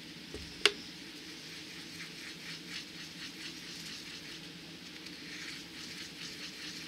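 Paintbrush stirring and dabbing acrylic paint in a palette well, thinning dark green with a few drops of water: faint, repeated scratchy brushing strokes. One sharp click about half a second in.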